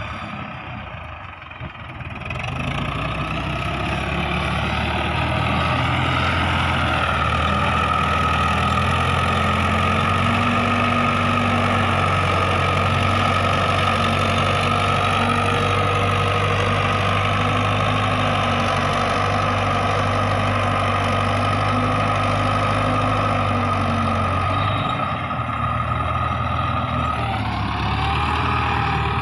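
A 1968 Russian tractor's diesel engine labours under load as the tractor pushes a front blade and drags a rear leveller through loose sand in low gear. It gets louder about two seconds in and then runs steadily, easing briefly near the end.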